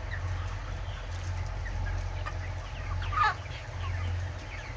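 A flock of chickens in a poultry house making short falling calls here and there, one louder call about three seconds in, over a steady low hum from the house's ventilation fans.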